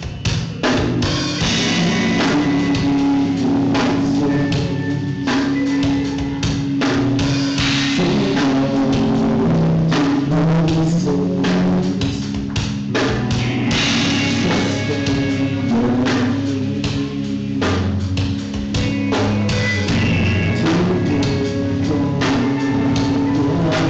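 Band playing live, with amplified electric guitars holding sustained notes over a drum kit that plays throughout.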